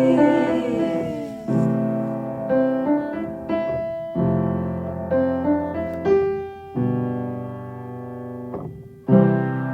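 Piano playing an instrumental passage in a slow ballad. Chords are struck about every two and a half seconds, each left to ring and fade, with a few higher melody notes over them.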